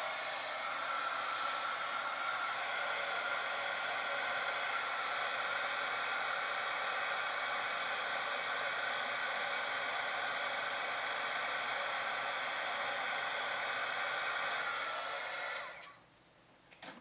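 Handheld craft embossing heat tool blowing steadily while heat-setting ink on a paper tag, then switched off near the end.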